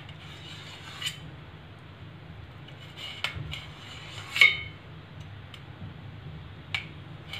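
Kitchen knife cutting a block of paneer on a stainless-steel plate, the blade clinking against the steel: several sharp metallic clicks with a short ring, the loudest a little past the middle.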